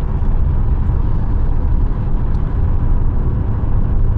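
Steady low rumble of a car in motion, road and engine noise that holds level throughout.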